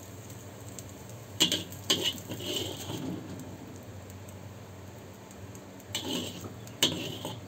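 Metal spatula knocking and scraping against a wok while scooping stir-fried food onto a plate: two sharp clinks about a second and a half and two seconds in, a short scrape, then two more clinks near the end.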